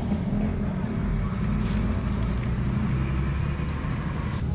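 A motor running steadily with a low hum, with a couple of faint ticks about one and a half seconds in and near the end.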